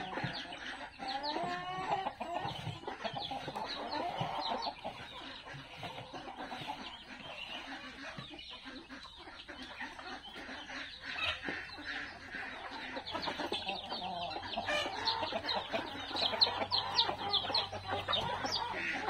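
A flock of free-range chickens and roosters clucking and calling over one another, with many short, overlapping chirps throughout.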